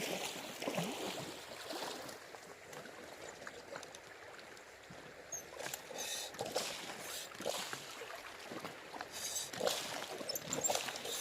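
Shallow river water trickling and sloshing, with scattered knocks and splashes of someone working in the water, busier in the second half.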